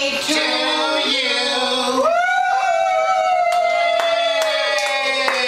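A small group singing a birthday song without accompaniment, ending on one long held note from about two seconds in.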